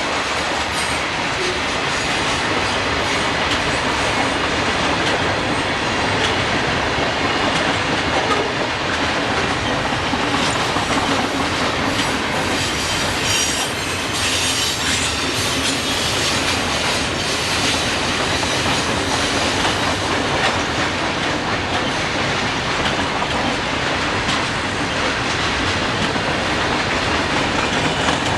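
Freight train's cars rolling steadily past close by, wheels clicking over rail joints and switch work, with some high-pitched wheel squeal around the middle.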